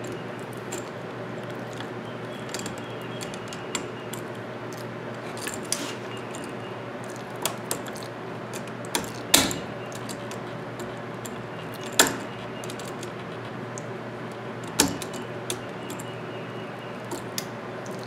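Steel pliers and stiff bare copper ground wire clicking and clinking as the wire is bent and wrapped around a screw on a 20 amp outlet, with three sharper clicks about nine, twelve and fifteen seconds in.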